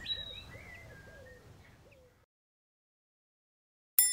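Birds chirping and cooing, fading out about two seconds in. After a silence, a sudden bright bell-like ding rings near the end, the chime that marks the page turn.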